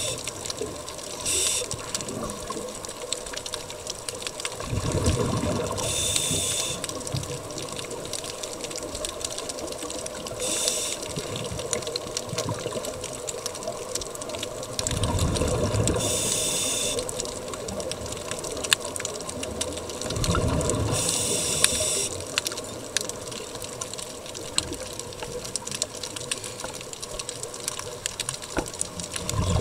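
Scuba regulator breathing heard underwater: a short hiss on each inhalation about every five seconds, with low bubbling bursts of exhaled air between them, over a steady wash of water.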